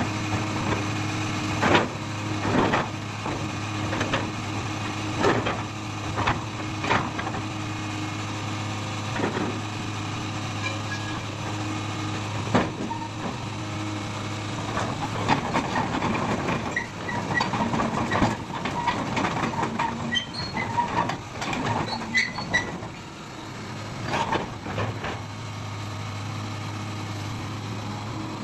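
Doosan DX225LCA excavator's diesel engine running steadily, with repeated sharp clanks and knocks from the machine and short high squeaks through the middle stretch.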